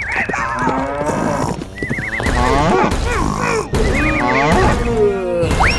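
Horse whinnying sound effects, three in a row, each a shaky trilled call sweeping downward, over background music, with a quick rising swoop near the end.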